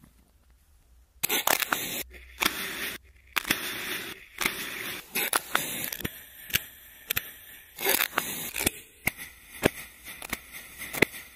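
Kinetic sand being scooped with a spoon, punched with a round metal cutter and sliced with a knife: close crumbly crunching and crackling with many sharp clicks, beginning about a second in.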